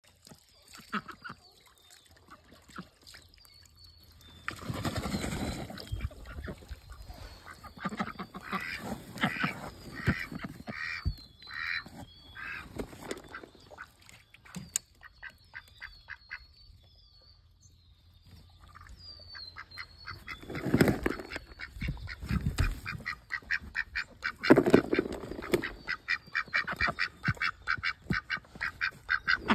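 Domestic ducks quacking in repeated short calls as they forage, with a quick run of calls near the end. A few louder bursts of noise come and go between the calls.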